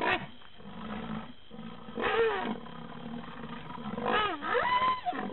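Loud pitched animal calls, about one every two seconds, each swooping down in pitch and back up.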